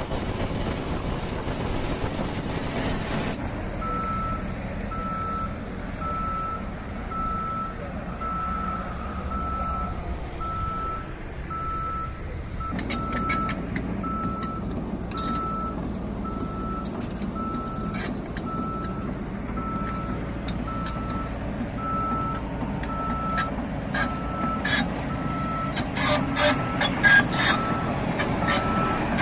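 Sany SR155 rotary drilling rig running, its warning alarm beeping a steady single tone about once a second from a few seconds in, over the low rumble of the diesel engine. Scattered metallic clicks and knocks come in partway through and grow busier near the end.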